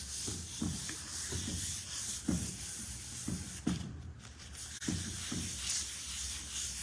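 Fine 1,200-grit sandpaper rubbed lightly by hand over a freshly waxed timber tabletop: a soft, hissing scratch in repeated back-and-forth strokes, about one or two a second, as the wax is sanded in before buffing.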